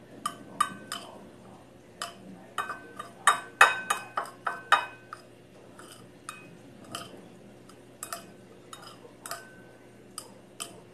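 A spoon clinking and scraping against a bowl as instant noodles are stirred and mixed with their seasoning. Some strikes leave the bowl ringing briefly, and there is a dense flurry of clinks three to five seconds in.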